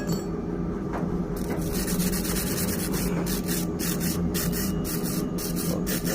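Rhythmic rasping strokes of a hand tool worked back and forth on metal, about three a second, starting about a second and a half in, over a steady machine hum.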